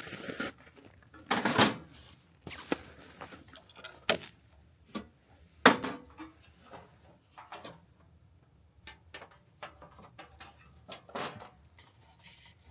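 Gear being handled and set down: a series of irregular knocks, clunks and clicks, the loudest about a second and a half, four and five and a half seconds in.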